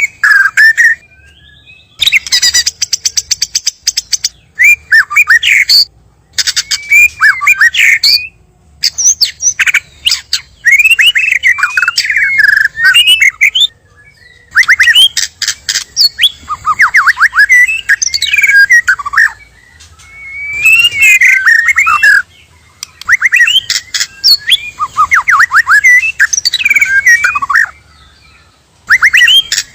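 White-rumped shama singing loudly: varied whistled phrases of quick rising and falling notes, mixed with rapid clicking notes, each phrase lasting a few seconds with short pauses between them.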